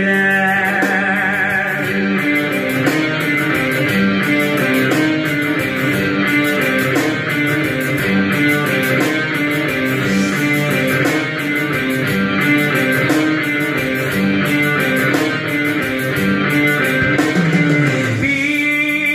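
Loud instrumental music with a plucked-string lead over a steady beat, with little or no singing.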